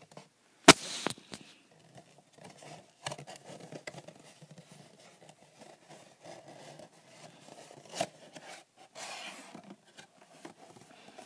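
Hands handling and unfolding a homemade paper model house close to the microphone: paper rustling and scraping, with a sharp knock under a second in and another about eight seconds in.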